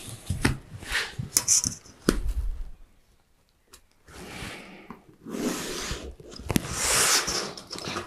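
A few clicks and a low knock as tools are handled on the workbench, then a marker scratching across a painted steel roofing sheet as a layout line is drawn, in two strokes, the second longer.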